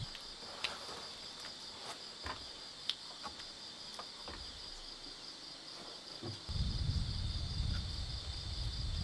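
Steady chorus of insects chirping, a high-pitched pulsing buzz, with a few light clicks. A low rumble comes in about two-thirds of the way through.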